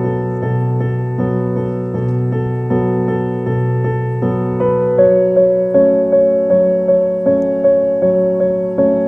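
Background music: gentle piano or electric piano playing sustained chords that change about every three quarters of a second, with evenly repeated notes in the second half.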